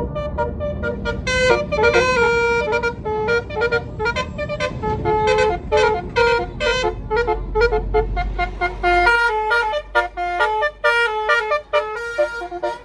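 A bus's basuri telolet horn, a multi-trumpet musical air horn, playing a rapid tune of short staccato notes over a bus engine's low rumble. The rumble drops away about nine seconds in while the horn keeps playing.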